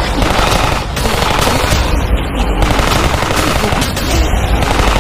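Rapid machine-gun fire sound effect: a loud, continuous stream of shots with no break.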